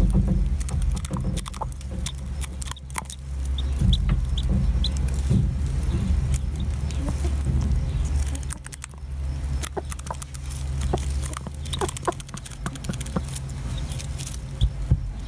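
Hen pecking scratch grain off a bare palm: a run of quick, sharp taps with straw rustling, while a two-day-old chick gives short high peeps now and then. A steady low rumble runs underneath.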